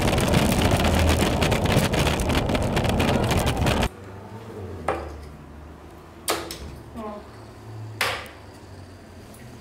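Skateboard wheels rolling fast over a hard indoor floor with the camera riding on the board: a loud, continuous rattling rumble that cuts off abruptly about four seconds in. Then three darts thud sharply into a dartboard, roughly a second and a half apart.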